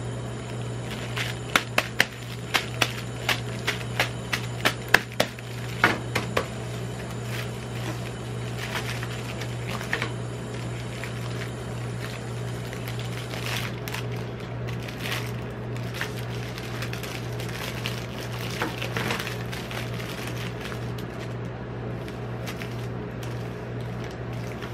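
Plastic candy-bar multipack wrapper being handled and torn open, with a quick run of sharp crinkles and crackles in the first several seconds, then softer, scattered rustling. A steady low hum runs underneath.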